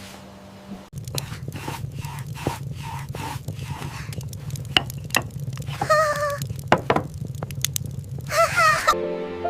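Kitchen cooking sounds: a steady low hum with many small clicks and knocks of utensils. Two short wavering pitched sounds come about six and eight and a half seconds in.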